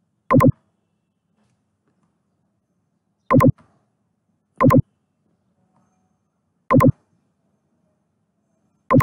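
Five loud, sharp clicks at a computer, each a quick double snap, coming irregularly a second or more apart.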